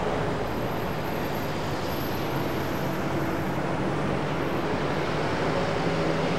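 Jet airliner engines running with a steady rushing noise and low hum, with a faint high whine over the first few seconds.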